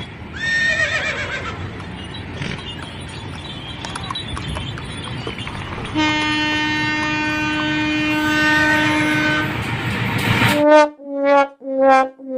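Diesel locomotive horn sounding one steady long blast of about three and a half seconds over the rumble of the approaching train. Near the end come three short blasts with silent gaps between them.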